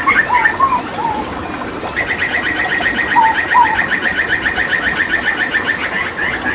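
Hooded butcherbird singing: quick chirps and a few lower whistled notes, then from about two seconds in a fast, even run of repeated notes for about four seconds. A steady rush of water runs underneath.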